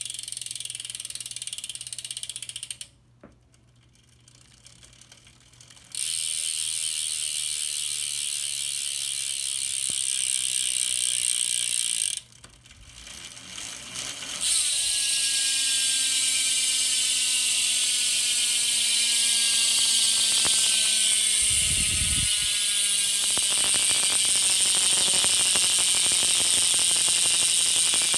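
Tree BMX rear hub freewheeling as the wheel is spun, its three-pawl, two-row ratchet with a 16-tooth racing mod giving a loud, high-pitched buzz. It fades out and picks up again twice, and the buzz slowly drops in pitch as each spin slows.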